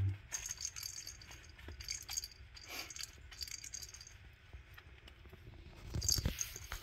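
A small jingle-bell cat-toy ball jingling in short bursts as a kitten bats and chases it, with a few dull thumps and a louder jingle about six seconds in.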